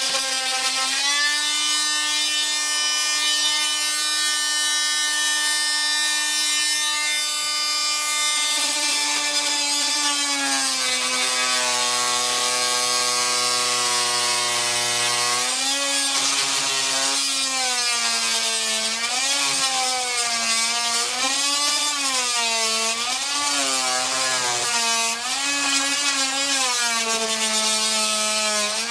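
Corded oscillating multi-tool running with a steady high whine as its blade cuts into the soft, rotted balsa core of a fiberglass boat hatch. From about halfway through, the pitch sags and recovers again and again as the blade is pressed into the material under load.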